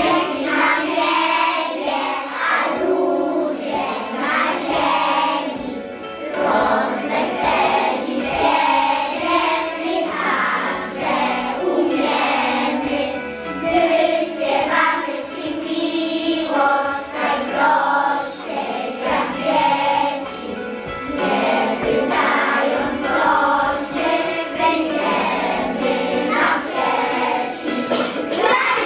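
A group of preschool children singing a song together in chorus, with a musical accompaniment holding steady low notes beneath the voices.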